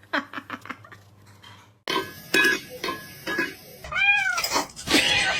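Cat meowing: a quick run of short calls, then after a break a louder stretch with one long, rising-and-falling meow about four seconds in.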